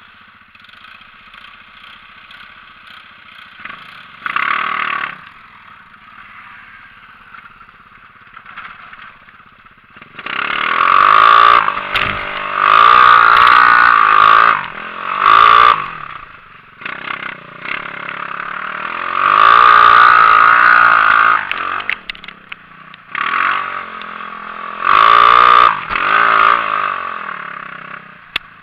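Engine of a 250 cc Xinling off-road buggy, heard from the driver's seat while driving. It runs low, then revs hard in bursts: once briefly about four seconds in, then several times in the second half, the pitch rising and falling with each rev.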